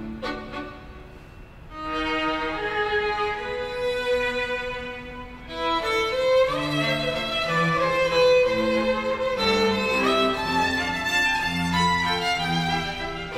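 String quartet of two violins, viola and cello playing live. The music is soft for about the first two seconds, then swells, and grows fuller and louder about five and a half seconds in, with a few upward slides in the melody.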